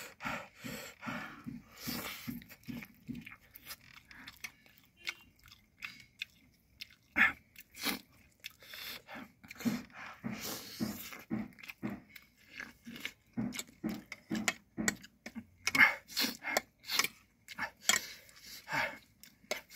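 A person chewing and biting while eating fried egg and spicy instant noodles: many short wet mouth clicks at an irregular pace, with a longer noisy stretch about ten seconds in, around a bite.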